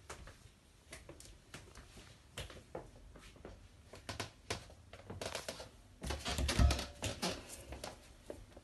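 Footsteps on a wooden floor and handling noise from a handheld phone: irregular light knocks and clicks. A louder cluster of bumps with a low rumble comes about six seconds in.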